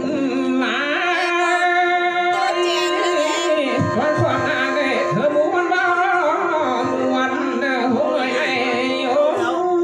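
Khắp Thái song: a singing voice carries a wavering, heavily ornamented melody over instrumental backing that holds a steady drone note.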